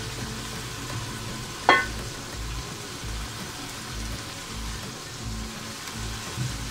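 Chicken masala sizzling in a pot as chopped fresh fenugreek leaves are added and stirred in, with one sharp clink about two seconds in.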